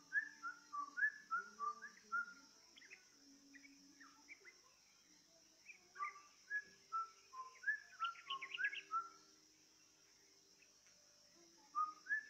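Yellow-vented bulbul (trucukan) song: bubbling phrases of short whistled notes in three bouts, at the start, from about six to nine seconds, and again near the end, over a faint steady hiss. It is a lure recording meant to get a caged trucukan to answer and sing.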